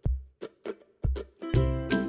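Background instrumental music with sharply plucked notes over low bass notes. It thins to a few scattered notes, then comes back in fuller about a second and a half in.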